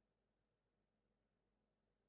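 Near silence: only a faint, steady noise floor.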